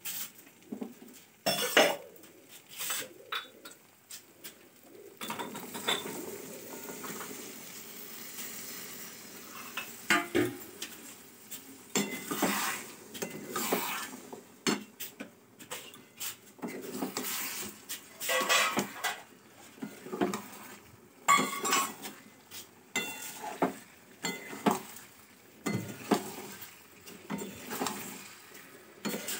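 A spatula stirring chickpeas and potatoes in masala gravy in a metal wok (kadhai), with irregular scraping and clinking against the pan and some sizzling, most of it about five to ten seconds in.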